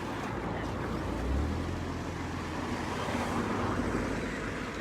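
Road traffic: a motor vehicle passing on the road, a low rumble swelling about a second in and tyre and engine noise rising again around three seconds in.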